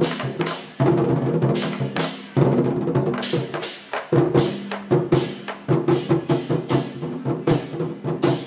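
Chinese war drum troupe playing: large drums beaten in a driving rhythm, sharp strikes with ringing after them about twice a second, coming faster near the end.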